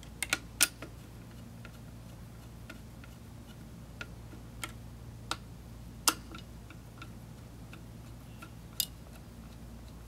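Irregular small sharp clicks and ticks of a manual screwdriver turning the spring-loaded heatsink screws down into a mini PC's motherboard, a few louder clicks about half a second in, near six seconds and near nine seconds.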